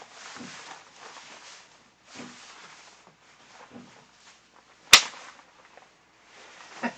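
Rustling and crinkling of a shiny PVC jacket and trousers worn over a sauna suit as the wearer moves and adjusts them, with a single sharp snap about five seconds in, the loudest sound.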